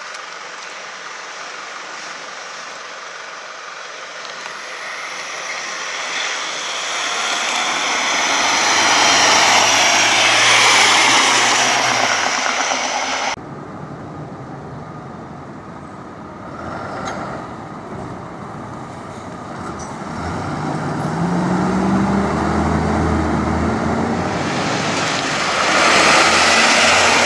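Heavy road-vehicle noise swells and cuts off abruptly about halfway through. Then a MAN fire engine's diesel engine rises in pitch as it accelerates away, and grows loud as it drives past close near the end.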